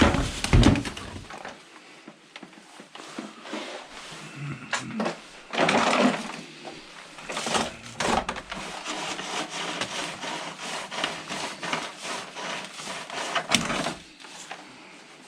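Rubbish being rummaged through and moved about in a bin: irregular clatter, knocks and rustling, with a few louder knocks.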